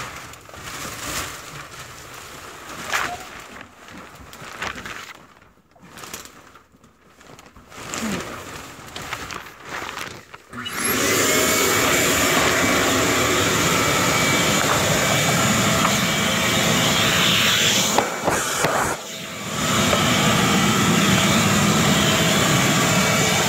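Scattered clicks and rustling of handling, then about 11 s in a shop vacuum used as a dust extractor switches on and runs loud and steady with a whine, dipping briefly near the end before coming back up.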